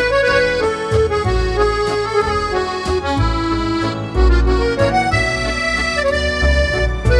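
Background music: an accordion-led instrumental with a steady low bass beat.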